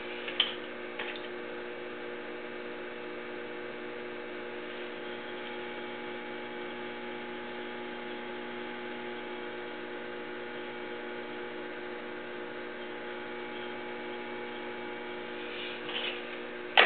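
Electric potter's wheel motor humming steadily as the wheel head spins. A few brief clicks come about half a second in and near the end, the loudest at the very end.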